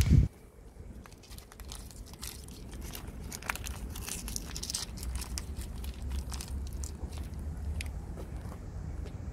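Cats eating wet cat food, a steady run of quick wet chewing clicks and smacks, with the foil pouch crinkling as it is squeezed out. A loud low thump at the very start.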